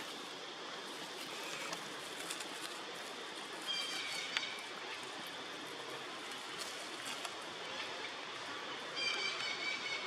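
Steady outdoor background hiss with two brief high-pitched animal calls, one about four seconds in and a longer run of short chirps near the end.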